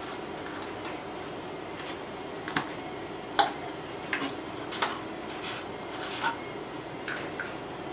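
A wooden stick slowly stirring nutrient solution in a plastic 5-gallon bucket: a handful of light knocks and clicks, about five spread through the middle, over a steady background hum.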